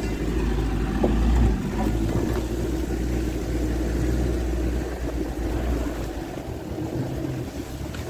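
UAZ off-road vehicle driving over rough grassy ground and a forest track: steady engine drone and ride noise, briefly louder just over a second in and a little quieter from about six seconds in.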